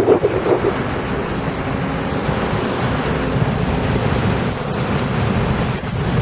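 Passenger train running close past on the track and pulling away, a steady rush of wheel and running noise.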